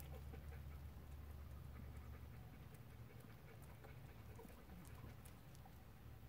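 Near silence: a dog panting faintly over a low, steady rumble.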